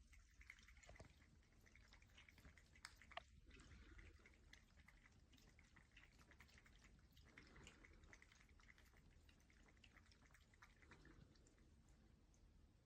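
Very faint water dripping and trickling at a battery-powered cat water fountain, in many small irregular drops.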